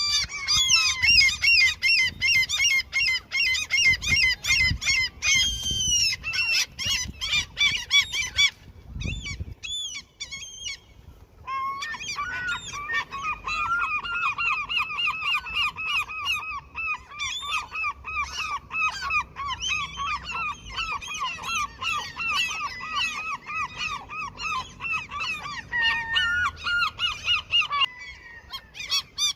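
Gulls calling: rapid runs of harsh, repeated calls from several birds, breaking off briefly about nine seconds in, then a long unbroken series of evenly repeated calls. Calls of gulls defending their territory.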